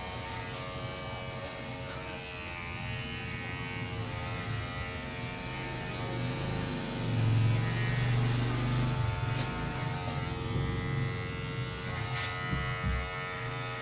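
Handheld electric beard trimmer buzzing steadily while trimming a man's beard, getting louder for a couple of seconds about halfway through.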